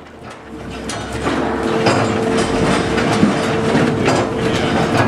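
Sawmill log-line machinery running: a dense clattering of logs and conveyor chains with many knocks over a steady machine whine. It grows louder about a second in.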